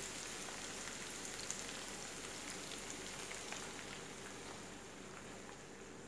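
Diced chicken and onion sizzling in oil in a frying pan: a steady hiss with small crackles that eases off over the last couple of seconds as crème fraîche is poured onto it.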